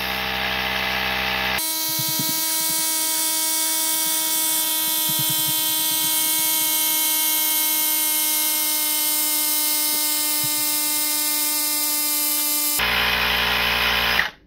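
Vogma portable tire inflator's small electric compressor running steadily as it pumps up a basketball, a steady buzzing hum. For most of the stretch it is sped up, so it sounds higher and thinner, then it returns to normal pitch and cuts off near the end as it reaches the 9 PSI set pressure and shuts off automatically.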